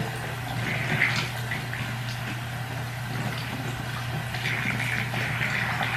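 Tap water running into a bathroom sink, a steady hiss with small swells, over a low steady hum.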